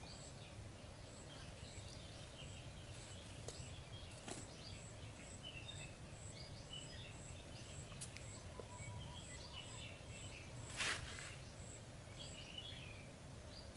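Faint woodland ambience: birds chirping here and there and a thin high note repeating evenly about twice a second, over a low steady rumble. There is a brief rustle near the end.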